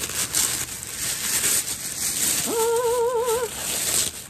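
Tissue paper rustling and crinkling as a backpack is unwrapped from it. About two and a half seconds in, a woman hums a single wavering note of delight for about a second.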